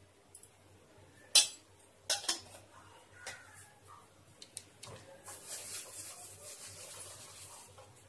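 A spoon knocking and scraping against the pan while stirring chilli powder into a watery quail curry: one sharp knock about one and a half seconds in, two more just after two seconds, then a steady soft rubbing hiss from about five seconds.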